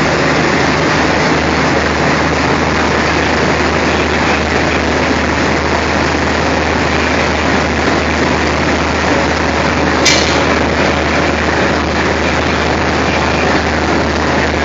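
Diesel locomotive engine running steadily with a deep hum. There is one sharp click about ten seconds in.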